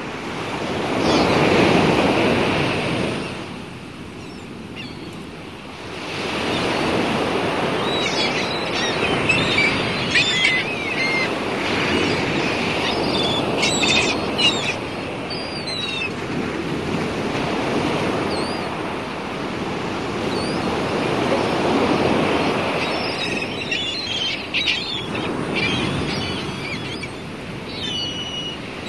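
Sea waves washing and surging, swelling and ebbing every few seconds, with bird calls over them in the middle and near the end.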